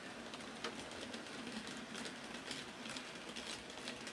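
HO-scale model freight train rolling along the track: a faint steady running hum with irregular light clicks, several a second, from the wheels over the rails.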